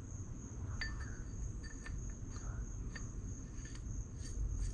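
A steady high-pitched insect trill, like crickets, with scattered light clicks and taps.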